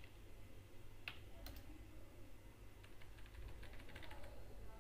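Faint, scattered computer keyboard keystrokes, a few separate clicks with pauses between them, the clearest two a little after a second in, over a faint steady low hum.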